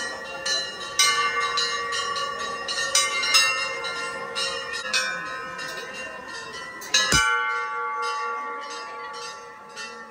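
Hanging brass temple bell struck again and again by its clapper, about two to three strikes a second, the ringing tones overlapping into continuous ringing.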